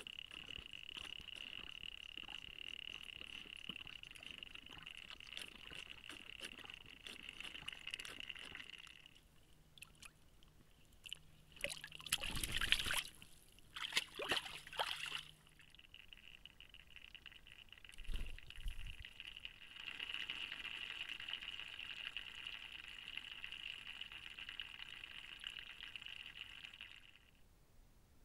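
A black bear moving and drinking in a shallow pool: water sloshing and dripping with many small ticks, then a loud burst of splashing and knocking as it comes right up against the camera about halfway through, and a short low thump a few seconds later. A steady high-pitched hum runs underneath most of the time and stops shortly before the end.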